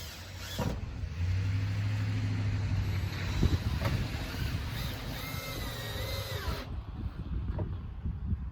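Power drill driving a screw into wood, running with a steady low hum for about two seconds, then a shorter higher whine about five seconds in, with knocks and handling between.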